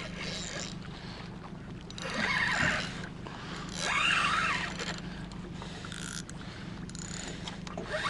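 A steady low hum from a small boat on open water, with two brief rushing swells about two and four seconds in.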